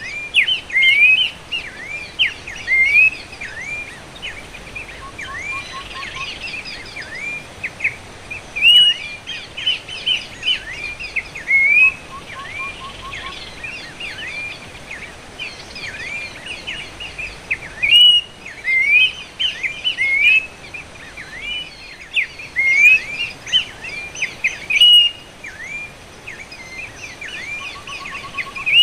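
Horsfield's babbler (pelanduk semak) calling: a dense run of short, loud whistled notes that sweep down and up, played as a lure. Brief fast rattles sound lower now and then, three times.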